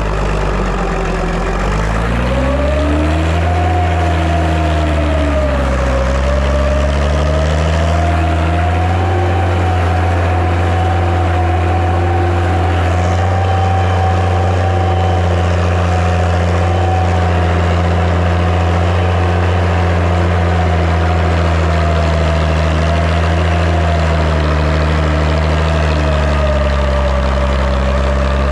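Massey Ferguson 95X tractor's six-cylinder diesel engine running hard while pulling a five-shank subsoiler. The engine speed sags and recovers twice in the first few seconds as it takes the load, then holds steady.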